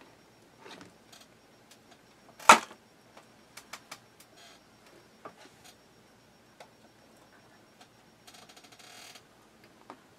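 Sharp clicks and taps from handling the hard plastic tub and dish, the loudest about two and a half seconds in, followed by a few lighter ticks and a brief fast rattle near the end.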